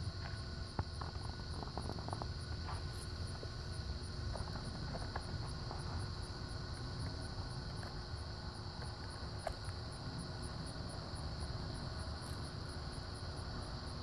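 Steady outdoor insect chorus, a high even drone, over a constant low rumble, with a few faint clicks in the first few seconds.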